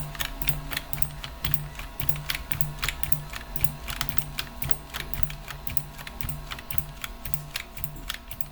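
Rapid, irregular clicking of keys being typed on a keyboard, several clicks a second. Beneath it a low pulsing hum repeats a little over twice a second.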